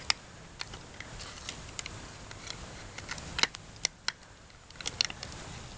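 Hand can opener cutting around the rim of a can of chicken, going back over missed spots: an irregular run of small sharp clicks, with a few louder ones near the end.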